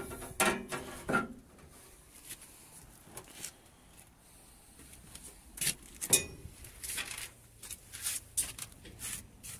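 Scattered light clicks and knocks, about a dozen over several seconds, with the loudest knock about six seconds in.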